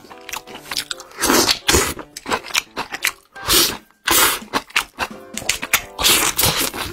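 Close-miked, wet mouth sounds of someone chewing and biting roast meat torn from the bone, coming in quick irregular smacks and crunches with a brief break near the middle, over soft background music.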